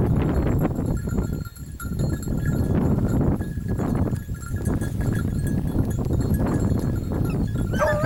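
Wind noise on the microphone, with small bells tinkling faintly now and then. A hunting dog starts yelping right at the end.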